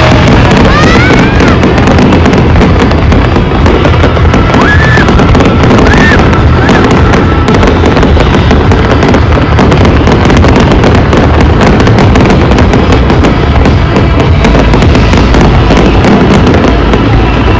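Aerial fireworks display: a loud, continuous barrage of shells bursting and crackling, with no break. A few short whistling glides rise through it in the first seconds and again around five to seven seconds in.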